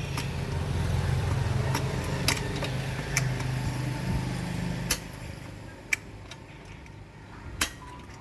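A small electric water pump's motor runs with a steady low hum for about five seconds, then stops. Sharp metallic clinks come every second or so throughout.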